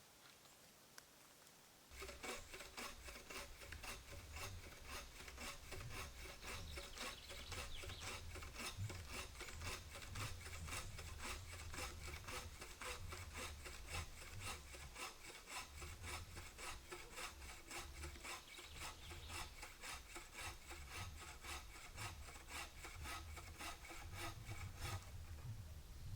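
Steady back-and-forth rasping strokes, like a saw or rasp working material, starting about two seconds in and stopping just before the end.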